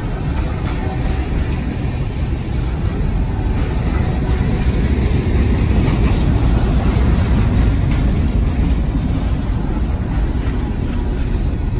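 Freight train's tank cars and covered hopper cars rolling past: a steady low rumble of steel wheels on rail that swells a little midway.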